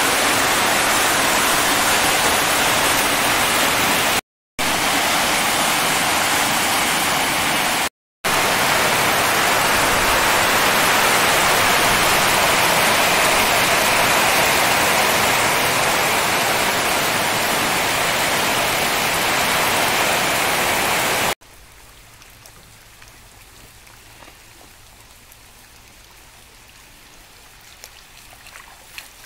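Heavy rain pouring down, a loud steady hiss broken twice by brief gaps. About two-thirds of the way through it cuts off abruptly to a much quieter sound of rainwater running.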